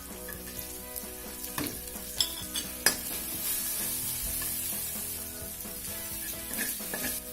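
Spice paste with lime leaves, bay leaves, galangal and lemongrass sizzling in hot oil in a pan while being stirred, with a few sharp knocks of the utensil on the pan between about one and a half and three seconds in.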